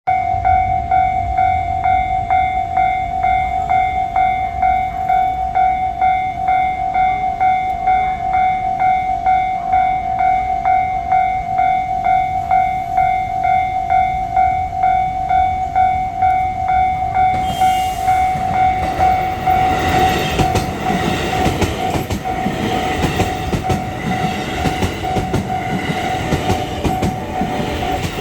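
A Japanese level crossing's electronic warning bell dings steadily, about twice a second. About 17 seconds in, a JR West Haruka limited express arrives and runs over the crossing with a loud rush and rattling, clacking wheels, while the bell keeps ringing.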